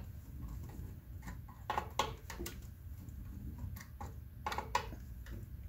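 Screwdriver loosening the terminal screws on a motor inverter: faint scattered clicks and ticks of the tip working in the screw heads, over a low background hum.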